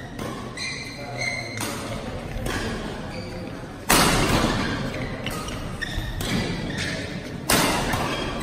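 Badminton rally: rackets striking the shuttlecock again and again, with two much harder smash hits about four seconds in and near the end that echo round the hall. Shoes squeak briefly on the court floor between shots.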